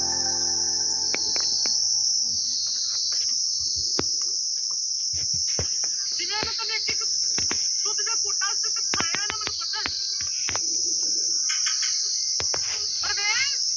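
Dense jungle insect chorus: a loud, unbroken shrill trill that swells and dips slowly. Over it a bird gives short bursts of quick looping whistled notes several times, from about halfway in.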